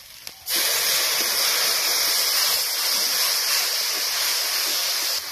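Loud, steady sizzle of a spice masala frying in hot oil in a kadai as a little water is added and it is stirred. It starts suddenly about half a second in and cuts off near the end.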